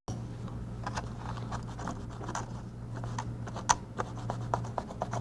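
Light scratching and irregular small ticks of scrubbing a tablet circuit board clean with isopropyl alcohol after soldering, over a steady low hum.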